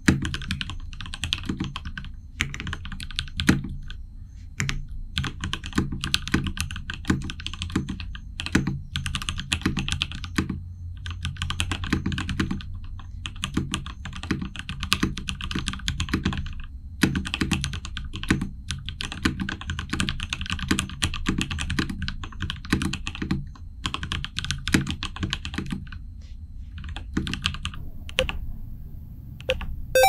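Typing sound test on a custom 60% mechanical keyboard: a Quarkeys Z60 Evolve with an aluminium case, lubed Durock L7 linear switches on an FR4 plate with thin PE foam, and Akko PBT cherry-profile keycaps. The keystrokes come in quick runs with brief pauses, and thin out near the end.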